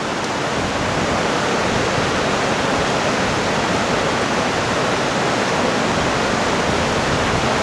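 The Tronto river in flood, rushing under a bridge in a steady, even noise: the water is still very high.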